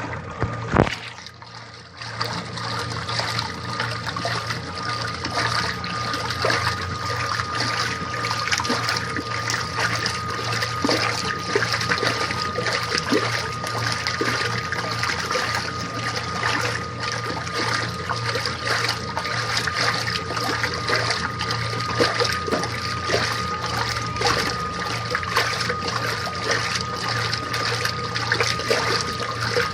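Washing machine running with water sloshing and trickling inside it, over a steady motor hum and a thin steady whine. A sharp knock comes just under a second in, with a short quieter spell before the running sound settles.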